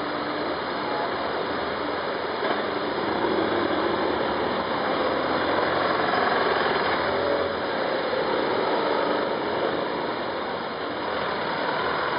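Several BMW police motorcycles with flat-twin engines riding slowly past at low revs, their engines running together with the sound of a passing van. The sound swells as the bikes go by near the middle.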